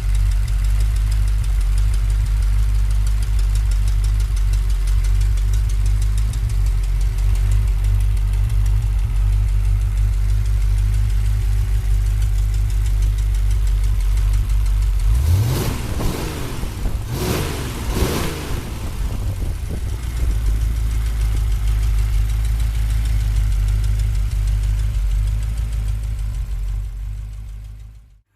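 1953 Ford Flathead V8 8VA, a 239-cubic-inch side-valve engine, idling steadily. About halfway through it is blipped up and back down about three times in quick succession, then it settles back to idle and fades out near the end.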